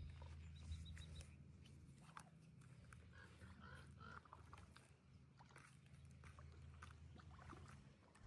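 Near silence: a faint steady low hum, with a few faint short animal calls starting about three seconds in.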